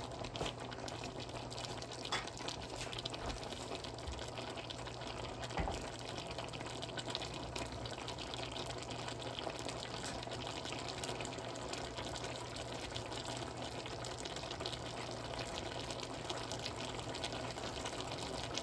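Pork and liver igado simmering, a steady bubbling and crackling, with a couple of light knocks about two and six seconds in.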